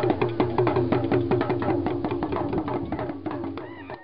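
Background music with a fast run of percussive strikes and short pitched notes, growing quieter near the end.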